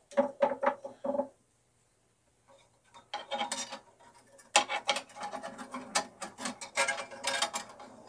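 Steel bandsaw blade being worked by hand onto the wheels of a Craftsman 10-inch three-wheel benchtop bandsaw: irregular rubbing, scraping and light metallic clinking of the blade against the wheels and housing. A short burst at the start, a pause of about two seconds, then steady irregular clatter from about three seconds in.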